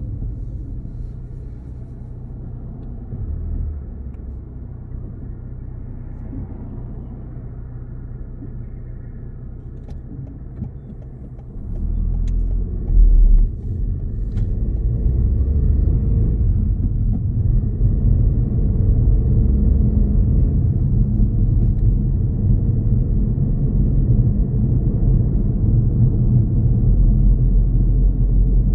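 Low rumble of road and engine noise inside a moving car's cabin, getting louder about twelve seconds in as the car picks up speed, with a brief louder thump shortly after.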